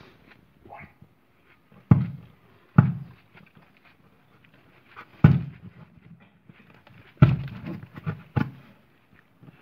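A screwdriver jabbed through the side of a cardboard box to punch holes, each stab a sharp thud on the box wall. There are four loud thuds spaced irregularly, then a quicker run of smaller ones near the end.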